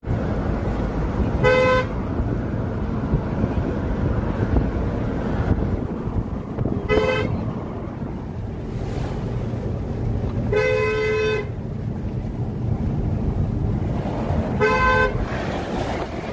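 A vehicle horn honking four times, short blasts with a longer one about two-thirds of the way through, over steady road traffic noise.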